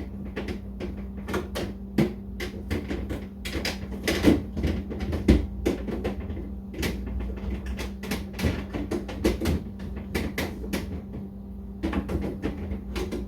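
Irregular clattering and knocking, many short clicks and taps of something being handled and fiddled into place, with a faint steady hum underneath.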